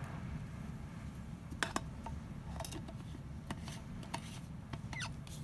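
Stainless-steel vacuum flask and its lid being handled on a table after pouring tea: a few light, sharp metallic clicks and taps, over a steady low rumble.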